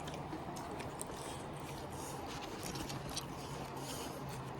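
Faint eating sounds: chewing and many small scattered clicks, over a steady low hum.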